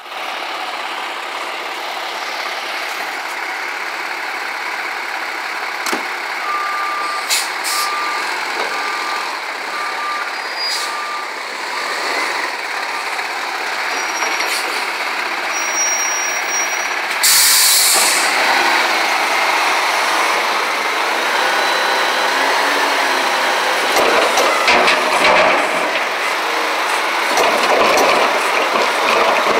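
McNeilus front-loading garbage truck working at the dumpsters: its diesel engine runs throughout, with reversing beeps at about one a second for several seconds. A short, loud air-brake hiss follows, then the engine works harder as the lift arms raise a dumpster.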